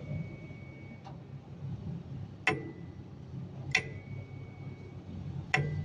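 Three sharp ticks a second or two apart, each leaving a short high ringing tone, over a low steady hum.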